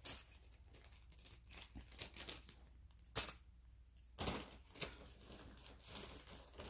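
Faint crinkling and rustling of a small plastic zip bag as cuff bracelets are slipped back into it, with a few sharp clicks, the clearest about three and four seconds in.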